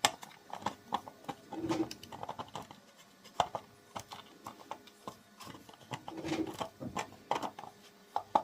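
Irregular clicks and knocks of hard plastic parts being handled: the two halves of a 3D-printed spool being lined up and twisted together around a coil of spool-less PLA filament.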